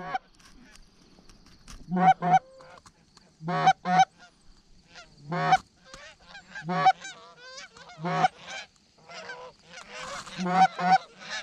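Geese honking: about a dozen loud honks, often in quick pairs, a second or so apart, with fainter honking from other geese between them and more overlapping calls near the end.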